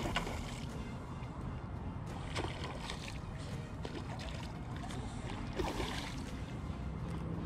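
Wind on the microphone and water lapping, broken by several short splashes from a small hooked snook thrashing at the surface.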